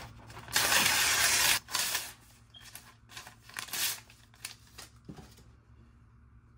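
A sheet of lined notebook paper being torn by hand: one long loud rip about half a second in, a shorter tear just after, then several quicker rips as the pieces are torn smaller. A soft thump comes around five seconds in.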